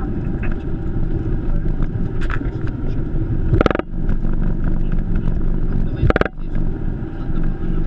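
Boeing 737 cockpit noise during the ground roll on the runway: a steady low rumble of the wheels and engines. Two short, loud sounds come about two and a half seconds apart.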